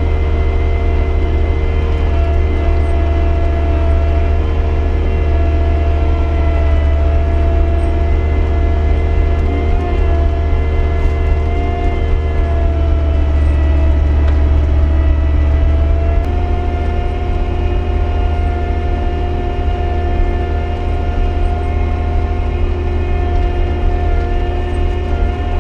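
Skid steer engine running steadily while plowing snow, a low drone with held whining tones over it. About two thirds of the way in the drone eases and the tones shift slightly as the load changes.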